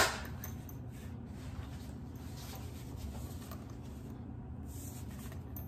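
Faint rustling and rubbing as a folding fabric-covered solar panel is handled and the stand on its side is pulled out, a few soft scuffs over a low steady room hum.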